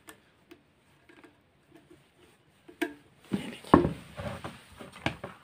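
Small hard clicks and clatter of hand tools and metal motor parts being handled on a workbench: a few faint ticks at first, then a sharper click and a burst of knocks and rattling in the second half.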